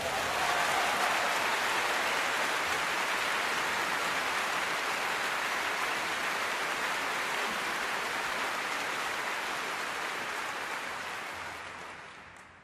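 Large audience applauding steadily, then dying away near the end.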